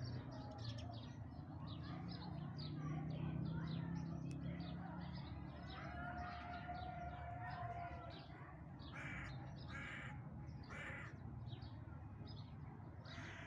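Crows cawing outdoors, with a few louder caws about a second apart in the second half, over continual chirping of smaller birds and a steady low background hum.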